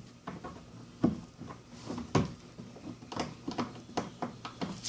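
Plastic push-in body fasteners being pressed into a car's rear bumper trim: irregular clicks and knocks of plastic, with two louder knocks about one and two seconds in. The old fasteners are not going in easily.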